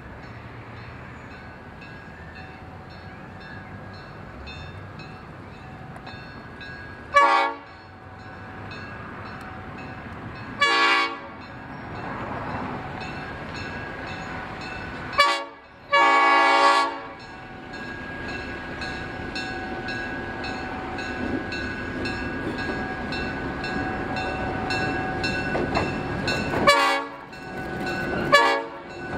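Fillmore and Western Railway train sounding its horn in a series of blasts: one about a quarter of the way in, another some three seconds later, then a short blast followed by a longer one of about a second, and two short blasts near the end. Between the blasts the train's steady rumble grows gradually louder as it approaches.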